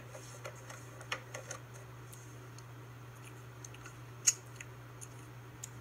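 Quiet handling of a plastic Magic Bullet blender cup: scattered small clicks and taps, with one sharp click about four seconds in, over a steady low hum.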